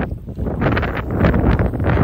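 Wind buffeting the microphone: a loud, gusting rumble that picks up about half a second in.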